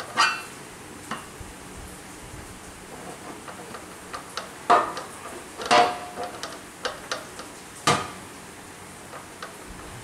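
Metal knocks and clanks of a steel auger bit's shaft being worked into the gearbox socket of a gas-powered earth auger, with the engine off. Four sharp knocks stand out, about half a second in, near five and six seconds, and near eight seconds, one of them ringing briefly, between lighter ticks and scrapes.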